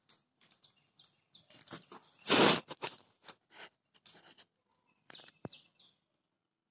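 Feral pigeon shuffling on a windowsill: a run of short taps and scratches from its feet and beak on the ledge, with one loud rustle about two seconds in and a few more clicks around five seconds.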